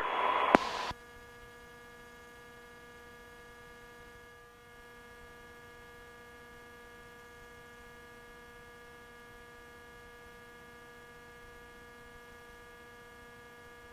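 Faint steady electrical hum with a stack of even overtones on an air traffic control radio feed between transmissions, after a short burst of radio noise in the first second that cuts off.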